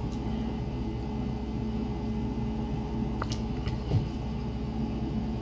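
Steady low electrical hum and whir from a DIY 3D printer standing idle while its bed heats up, with two faint clicks in the second half.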